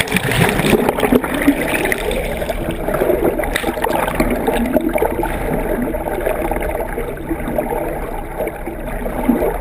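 Water rushing and gurgling steadily along the hull of a boat under way.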